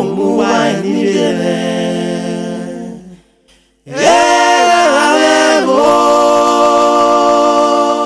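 A woman's voice singing a slow, unaccompanied lament in long held notes that bend and slide. It breaks off for a breath about three seconds in, then resumes with a long steady note.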